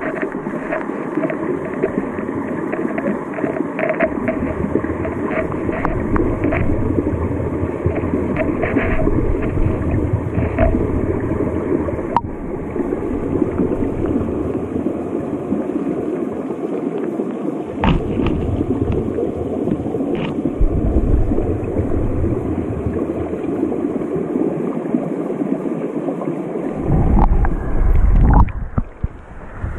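Running stream water gurgling and rushing, heard through a camera held underwater in a shallow, rocky stream, with scattered small ticks. Near the end a louder low rumbling and sloshing comes in as the camera nears the surface.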